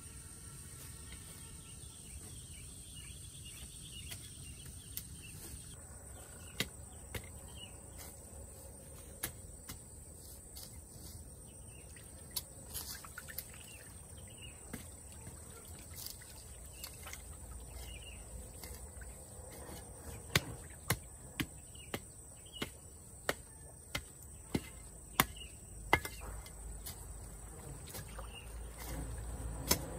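A steady high insect drone, with occasional sharp knocks that, from about two-thirds of the way in, become a regular run of loud knocks about twice a second for several seconds.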